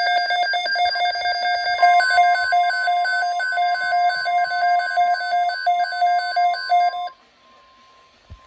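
Weather alert radio sounding an alert: a rapid, even beeping alarm in several pitches that stops suddenly about seven seconds in. Under it, from about two seconds in, a steady single alert tone that carries on faintly after the beeping ends, with a short click near the end.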